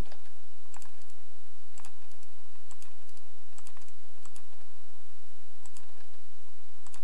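Sparse single clicks from a computer's mouse and keyboard, roughly one a second, over a steady low electrical hum.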